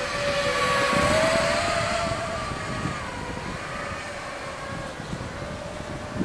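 Eachine Wizard X220s racing quadcopter's brushless motors and propellers screaming in flight on a 5S battery, a high whine whose pitch wavers up and down. It is loudest about a second in, then slowly fades.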